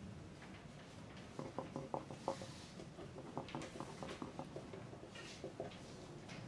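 Quiet exam-hall ambience: a run of quick, light taps and knocks starting about a second and a half in and lasting a few seconds, with a brief rustle, over a steady room hiss.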